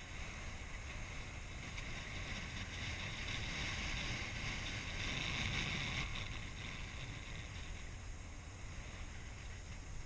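Skis gliding fast over packed snow, a steady scraping hiss that grows louder in the middle and then eases, with wind rumbling on the microphone.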